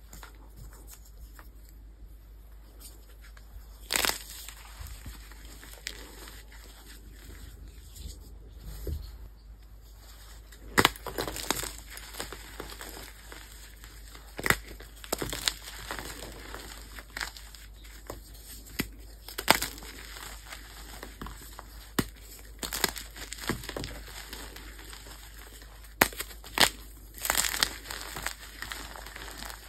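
Soft gym chalk blocks, dusted with baby powder, being crushed and crumbled between the hands. A scatter of short, sharp crunches with powdery crumbling in between: one about four seconds in, then coming much more often from about eleven seconds on.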